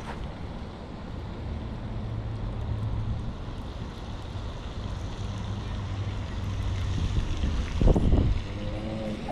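Wind buffeting the microphone over a steady low rumble, with a few short thumps near the end.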